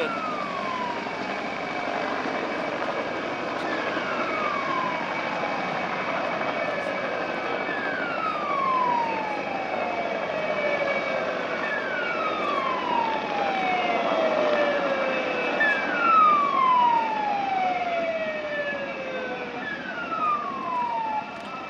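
Fire engine siren wailing, its pitch sliding down over about three seconds and starting again high about every four seconds. Under it runs the steady whine and rotor noise of a PZL Mi-2 helicopter's turboshaft engines.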